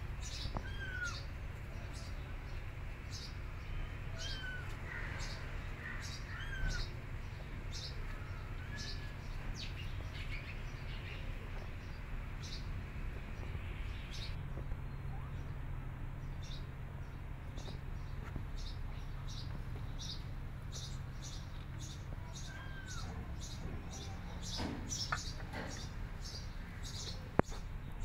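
Kittens crunching dry kibble, with crisp irregular crunches one or two a second, and a few short high mews.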